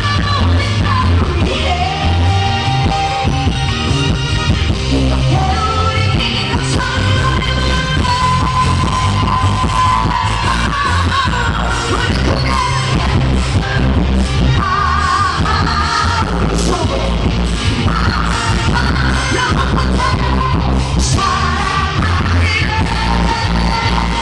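Amplified pop song performed live: a singer's voice, with vibrato on held notes, over a loud backing track with a heavy bass and beat.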